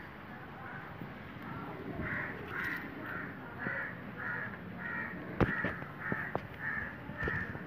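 An animal calling over and over in short, harsh, evenly spaced calls, about two a second. A sharp knock comes about five and a half seconds in.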